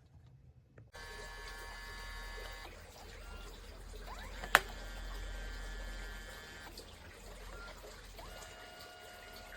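Built-in photo printer of a Kodak Mini Shot 3 Era instant camera running a print pass. A steady motor whine starts about a second in, there is one sharp click midway, and the whine changes pitch twice in the second half.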